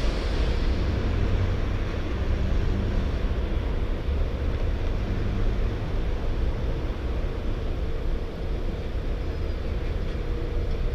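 Steady low rumble of road traffic and idling engines at a busy city junction, with a faint steady hum that comes up near the end.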